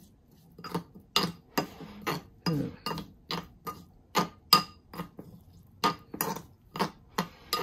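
Metal spoon clinking against a ceramic bowl while seasoned vegetables are stirred and tossed: irregular ringing clinks, about two or three a second.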